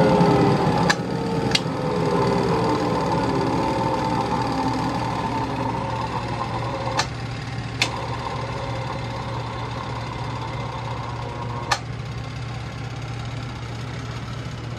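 Clay Adams DYNAC centrifuge winding down under its brake: the motor's whine falls in pitch and slowly fades over a steady low hum. A few sharp clicks stand out along the way.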